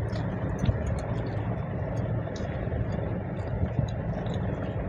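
Hands squishing and mixing rice and chicken curry on steel plates, with scattered small wet clicks and smacks of eating, over a steady low background rumble.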